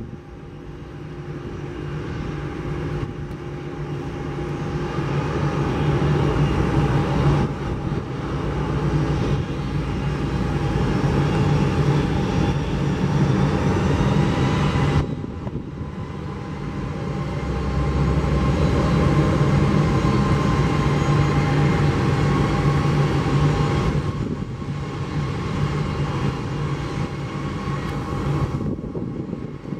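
Boeing 777-300ER's twin GE90 turbofans at takeoff thrust through the takeoff roll and liftoff: a steady jet roar with a whining tone, building over the first few seconds. The level jumps abruptly a few times.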